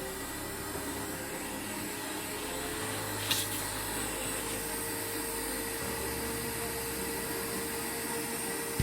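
A small electric motor running at a steady speed, with a constant whine and hum, and a short click about three seconds in.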